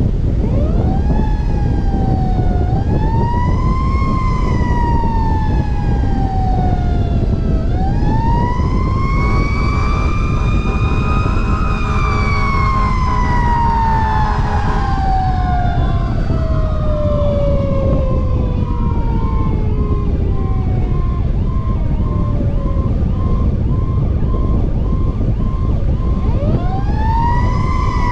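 A fire truck's siren, heard from its own roof while the truck is driving, winds up and then slowly coasts down in irregular cycles. The pitch rises quickly, then falls slowly over several seconds, and spins up again near the end. Around the middle a steady multi-tone horn blast sounds over it, and wind rumbles on the microphone underneath.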